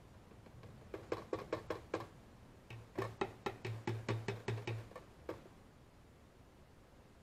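Oil glugging out of an upturned plastic bottle into a funnel, as air bubbles back into the bottle. It comes in quick rhythmic glugs, about six a second, in two runs, the second longer and deeper.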